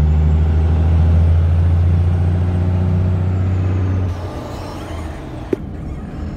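Cummins 6BT inline-six turbo-diesel in a 1960 Ford F-350 pulling under heavy throttle: a loud, steady, deep drone while it is fuelled hard enough to pour black smoke from the stack. About four seconds in the drone drops away to a quieter, rougher running, with a single sharp click a little later.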